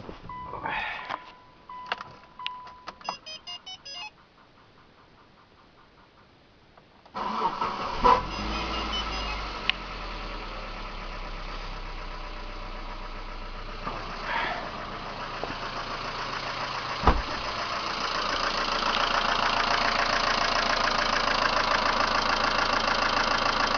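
Mitsubishi Lancer Cedia's 1.8-litre GDI four-cylinder engine starting about seven seconds in after a few clicks and short beeps, then idling with a fast metallic tapping that gets louder in the last few seconds. The tapping is the hydraulic lifters knocking hard, which the owner believes but is not fully sure is the lifters and not something else.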